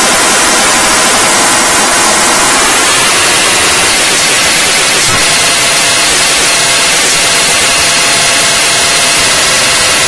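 Loud, steady harsh static noise with faint held tones buried in it.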